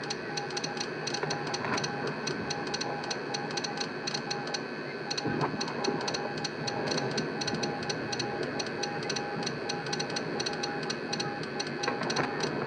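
Morse code: a single steady beep tone keyed on and off in short and long pulses, dots and dashes, over a noisy background with a fast, regular ticking.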